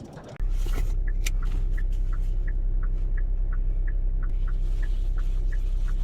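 Steady low hum of a car heard from inside the cabin, with the turn-signal indicator ticking at about three ticks a second.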